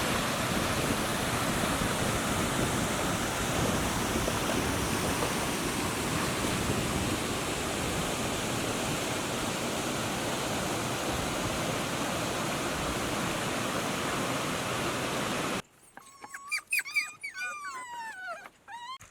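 Steady rushing water, like a stream or small waterfall, that cuts off suddenly near the end. After it, a few short high calls slide down in pitch.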